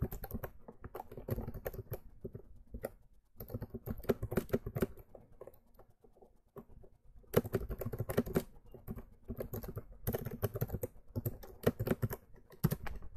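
Computer keyboard being typed on in several quick runs of keystrokes, with pauses of a second or two between the runs.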